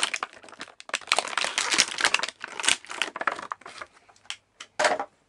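Clear plastic packaging crinkling and crackling as it is handled: dense for the first few seconds, then thinning to a few scattered crackles.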